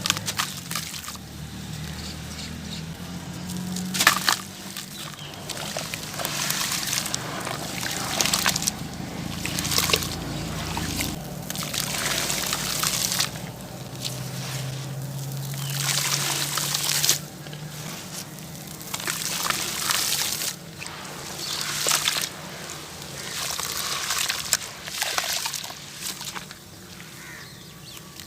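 Gritty sand-and-cement hearts being crumbled in water: wet crunching and sloshing, coming in a fresh surge about every two seconds.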